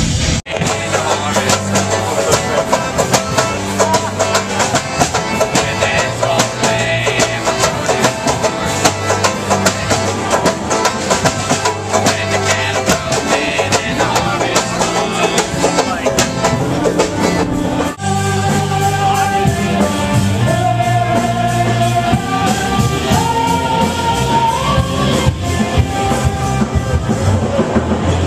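Band music with guitar, drums and singing, cut off abruptly and picked up again twice, about half a second in and about eighteen seconds in.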